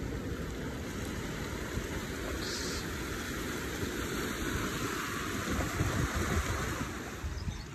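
Seawater surging and washing between shoreline rocks, a steady rushing hiss that swells about halfway through, with wind buffeting the microphone underneath.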